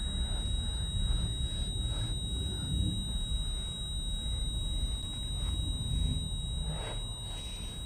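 A man breathing heavily in irregular breaths over a low, steady rumble, with a faint steady high whine.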